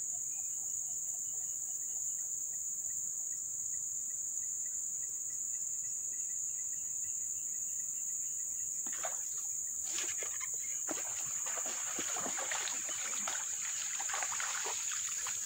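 Steady high-pitched insect chorus of crickets. From about nine seconds in comes a stretch of irregular splashing and rustling as a hooked kerandang snakehead is pulled in and landed.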